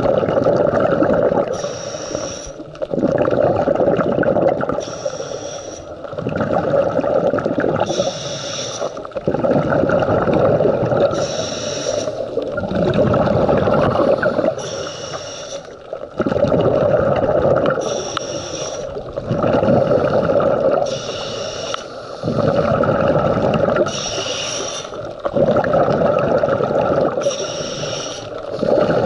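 Scuba diver breathing through a regulator underwater: a short hiss on each inhalation, then a longer rush of exhaled bubbles. The cycle repeats evenly about once every three seconds, around nine breaths in all.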